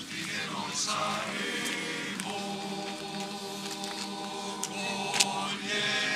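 Men's choir singing an Alpini song a cappella, with a long held chord through the middle.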